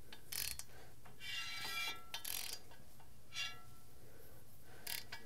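Ratchet wrench clicking in several short runs as it turns a 12-valve Cummins crankshaft by hand, rotating the new flex plate step by step to check its runout with a dial indicator.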